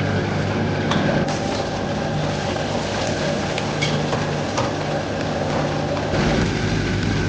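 Restaurant wok range running steadily, its gas burner and blower giving a low hum and rumble, with food frying in hot oil in the wok and a few light clicks of a metal ladle against the wok. The rumble deepens about six seconds in.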